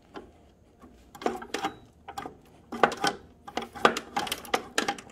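A run of short, irregular metallic scrapes and clacks. These fit the snow blower's friction drive wheel being slid back and forth along its drive axle.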